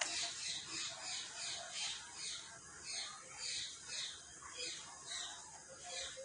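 A small bird chirping repeatedly: short, high, downward-sliding chirps about twice a second.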